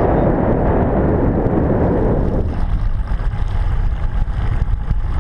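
Wind buffeting an action camera's microphone: a loud, steady rush that thins out about halfway through, leaving a low rumble.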